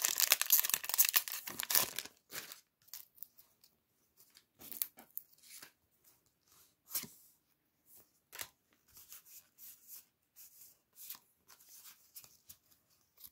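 Foil trading-card booster pack torn open, crinkling loudly for about two seconds, followed by scattered soft swishes and taps as the stack of cards is slid out and handled.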